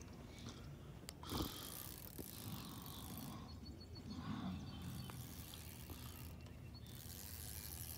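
Fishing reel faintly clicking and whirring, with fine rapid ticks, as line is worked against a hooked fish.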